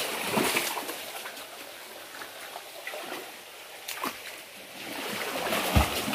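A person wading and splashing through a shallow stream pool. The splashing is louder at the start, eases off, then builds near the end into heavier splashing as he plunges in and swims.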